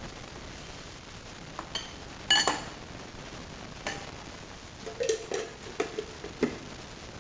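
A ceramic bowl clinking against a glass food-chopper bowl with a short ringing note about two seconds in, among lighter clicks. Several quick knocks and taps follow near the end as the glass chopper bowl and its lid are handled.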